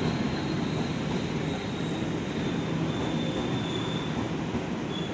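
Passenger train coaches running through the station at speed without stopping: a steady rumble and rush of steel wheels on the rails. A faint thin high squeal comes and goes.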